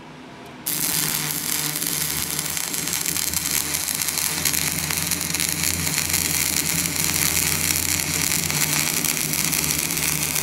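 Electric arc welding on a steel gear shaft: a steady crackling hiss starts abruptly about a second in as the arc strikes, with a low hum underneath. The weld is rejoining a broken hi-low gear shaft.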